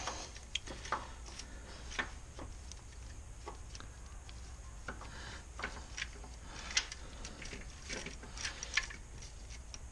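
Light, irregular metallic clicks and clinks of a Ford 5.4 3V timing chain being worked by hand onto the cam phaser sprocket.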